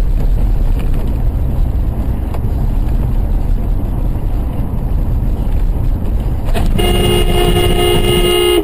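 Low road and engine rumble inside a moving car, then near the end a car horn sounds, held steady for nearly two seconds and cut off sharply.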